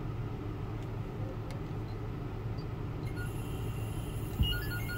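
Steady low hum in a car cabin, with a single light tap on the head unit's touchscreen about four and a half seconds in.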